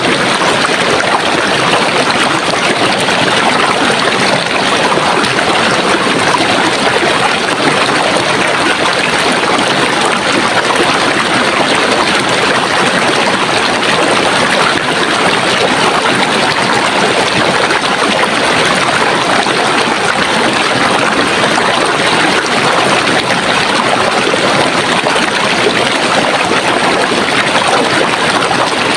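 Running water of a stream, a loud, steady rushing and trickling that does not change.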